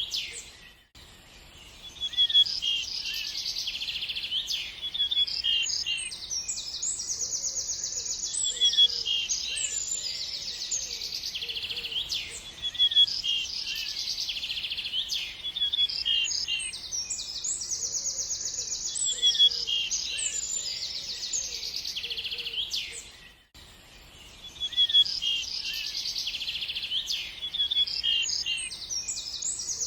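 Several small songbirds chirping and singing: rapid buzzy trills and repeated high chirps, almost without pause. The level drops briefly twice, about a second in and again around 23 seconds, and the same stretch of song then comes round again: a looped recording.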